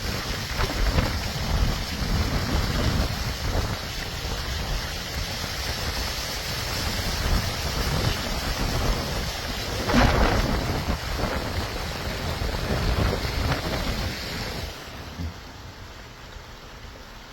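Nor'easter storm noise: wind buffeting the microphone over a steady hiss of rain and water, with a louder burst about ten seconds in. It turns quieter about fifteen seconds in.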